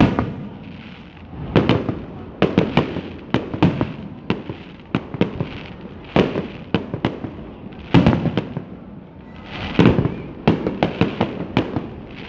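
Fireworks display: loud bangs and crackling pops from bursting shells, coming in irregular clusters every second or so.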